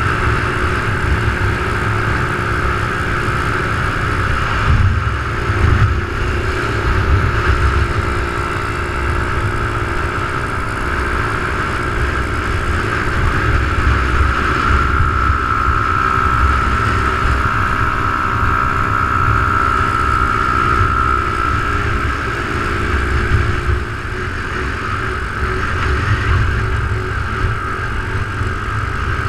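Small motorbike engine running steadily at cruising speed, with a steady high whine that is strongest about halfway through, under heavy wind rumble on the microphone from riding.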